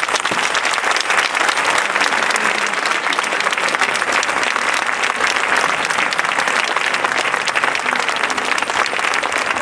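Audience applauding: dense, steady clapping at the end of an orchestral piece.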